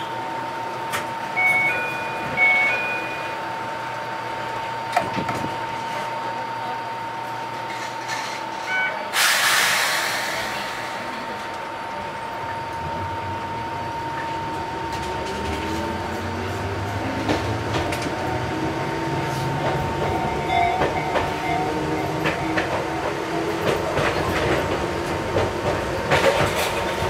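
Enoshima Electric Railway train pulling away from a station, heard from the cab: a brief hiss of air about nine seconds in, then from about thirteen seconds the traction motors whine in several tones rising in pitch as the train accelerates, with wheels clacking over the rails near the end. A steady thin tone hums underneath.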